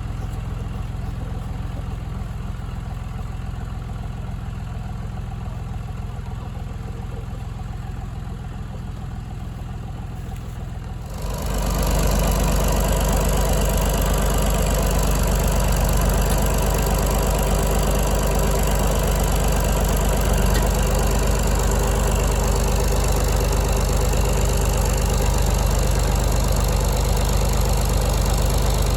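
An engine running steadily. About eleven seconds in it gets suddenly louder and fuller, then holds at that level.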